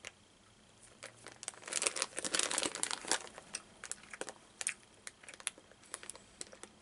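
Plastic candy packet crinkling: a dense run of crackles for about a second and a half, starting about a second and a half in, then scattered small crackles and clicks.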